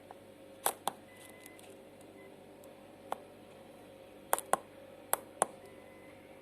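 Sharp clicks, about seven in all, most of them in quick pairs, over a faint steady hum and hiss.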